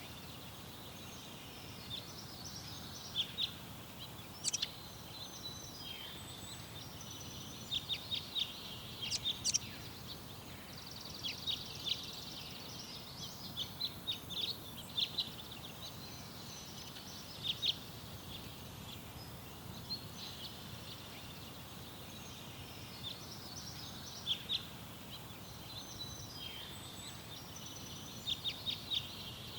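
Small garden songbirds chirping and calling in short high notes and quick trills, scattered throughout, over a steady low background rumble.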